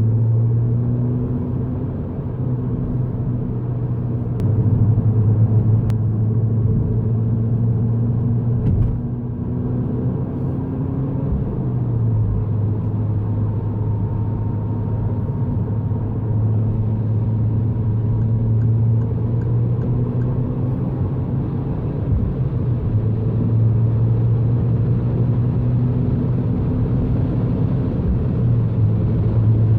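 Peugeot 208 GTI's 1.6-litre turbocharged four-cylinder running under steady driving, a low drone with road noise whose pitch drifts slightly up and down with the revs.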